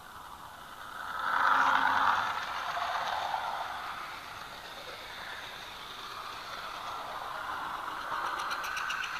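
OO gauge model train running past close by, loudest as the diesel locomotive goes by about a second in, then its goods wagons rattling along the track, with a rapid run of clicks from the wheels near the end.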